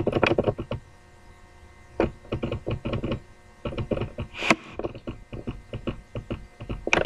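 Runs of light, irregular clicking from computer controls as a document is scrolled down the screen.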